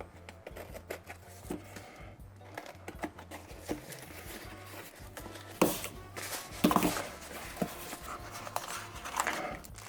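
Background music with a steady bass line under the handling of a mail package being opened: scattered clicks and rustles, with two louder brief bursts about five and a half and six and a half seconds in.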